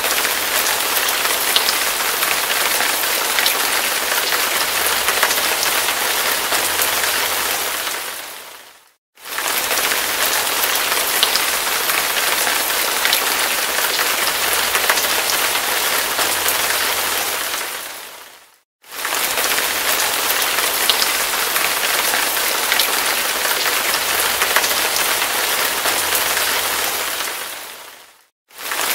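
Hard rain falling steadily, a dense even hiss with scattered fine droplet ticks. The sound fades out to a moment of silence and straight back in three times at even spacing, about every nine and a half seconds.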